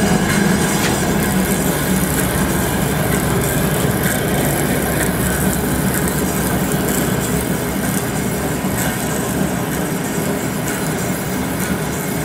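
Grob TC4L vertical band saw running steadily: the even hum and rattle of its motor, wheels and moving blade.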